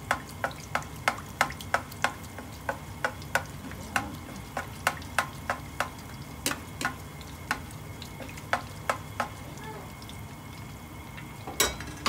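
Papaya fritters (ukoy) frying in hot oil: a steady sizzle with frequent sharp crackles and pops of spattering oil, two or three a second, and a brief louder burst near the end.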